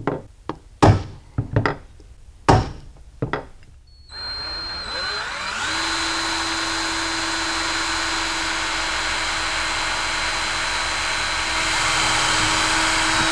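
Several sharp taps of a hammer on a punch, marking the metal mirror back plate. About four seconds in, an electric drill spins up with a rising whine and then runs steadily as the bit bores through the plate, making holes for self-tapping screws.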